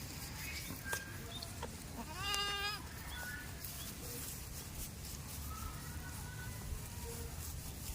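A goat bleats once, a short wavering call about two seconds in, over a steady low background rumble.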